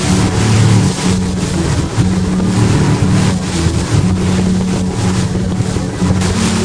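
Tour motorboat's engine running steadily as the boat moves over choppy river water, with a constant rush of water and wind.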